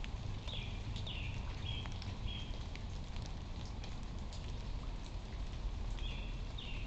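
Light rain ticking and pattering in scattered drops over a steady low rumble, while a songbird sings a short phrase of clear whistled notes, some slurred downward, twice: early on and again near the end.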